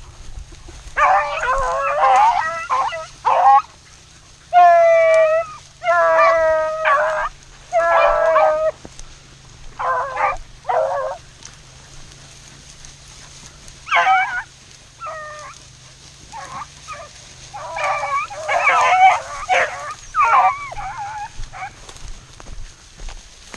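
A pack of beagles baying on a rabbit's track: several hounds giving voice at once in drawn-out howling calls and shorter chops. The cry comes in bursts, falls quiet for a few seconds midway and picks up again near the end, the sound of the pack running the line.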